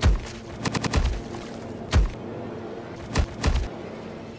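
Gunfire from a film soundtrack: a rapid burst at the start, another rapid burst just under a second in, then a single shot about two seconds in and two more shots a little after three seconds.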